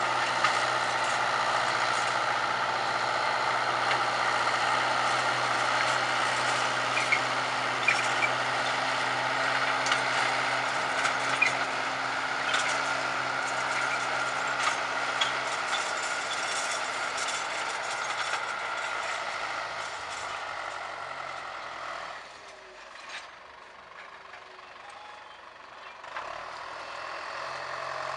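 John Deere tractor's diesel engine running steadily under load while pulling a tillage implement through a dry field, with scattered short clanks. The engine sound drops for a few seconds about three-quarters of the way through, then partly returns.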